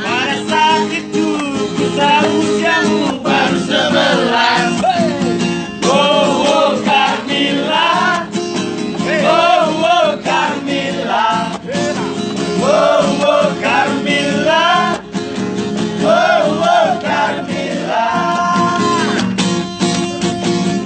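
Acoustic guitar strummed as accompaniment to male singing in a high voice with a wide vibrato, phrase after phrase.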